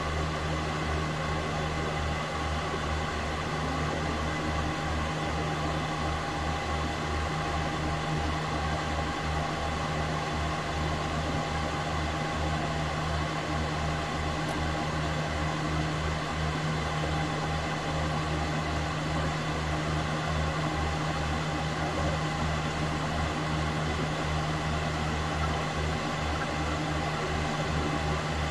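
Reef aquarium equipment running: a steady machine hum and hiss, with a low, fluttering rumble underneath and a few constant tones.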